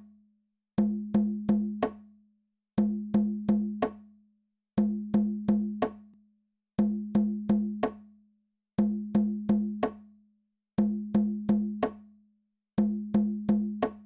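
Soundtrack music: a looping percussion figure of four quick, pitched knocks, repeating every two seconds with a short silence between each group.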